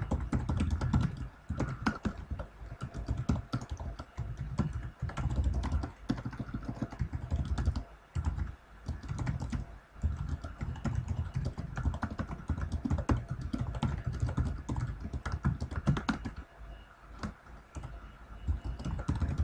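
Typing on a computer keyboard: rapid, irregular key clicks in runs broken by brief pauses.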